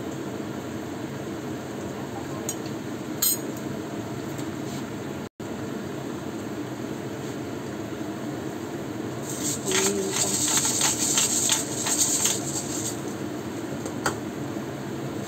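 A cooking utensil clinking and scraping in a coated wok of simmering chicken and papaya soup, a rapid run of clinks for about four seconds after the middle, over a steady background hiss. A single click comes about three seconds in.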